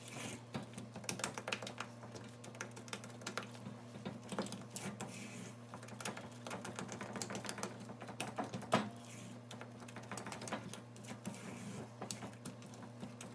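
A spatula stirring thick peanut butter fudge in a metal saucepan, making irregular scraping and clicking against the pot, with one louder knock about nine seconds in. A faint steady hum runs underneath.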